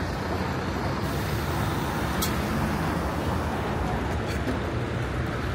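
Steady street ambience of passing road traffic, an even rumble and hiss with no distinct single event.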